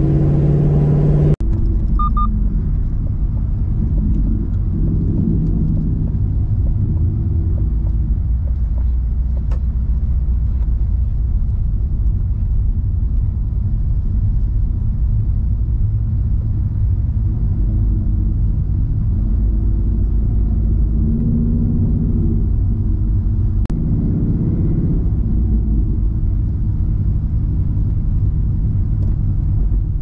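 Ford Mustang GT's V8 engine and exhaust running at a steady cruise, a low drone with road noise, heard from the dashboard. About a second and a half in, the sound changes abruptly from a clearer, more tonal engine note to this steadier drone.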